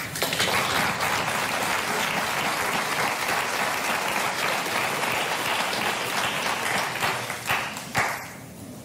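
Studio audience applauding steadily, thinning to a few last separate claps and dying away near the end.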